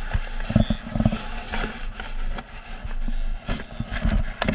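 Irregular knocks, thumps and rubbing from handling a fish in a landing net while it is unhooked.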